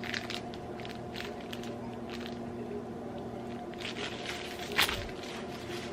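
A steady low hum of a few held tones, with faint scattered ticks and rustles and one sharper click about five seconds in.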